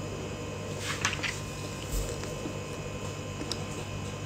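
Quiet room tone: a steady low hum, with a brief soft rustle about a second in and a faint low thump about two seconds in.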